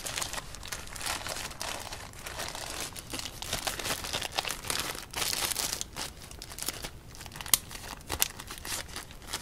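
Clear resealable plastic bag crinkling and crackling as hands handle it and the small card decks inside, with one sharper click about seven and a half seconds in.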